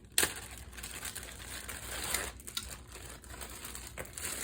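Crinkling rustle of packaging being handled, with a sharp knock just after the start and a few lighter clicks later.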